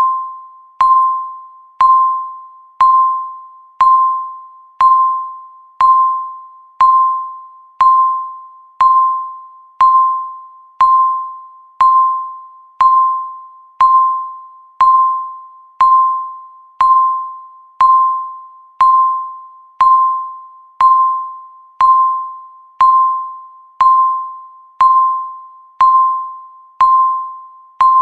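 Countdown timer beeping once a second: a single mid-pitched electronic tone that starts sharply and fades away before the next one, in a steady, even rhythm.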